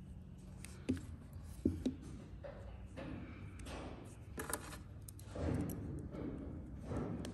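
Plastic gear shifter handle being handled and set upright on a wooden workbench: three short knocks in the first two seconds, then soft scattered handling noise.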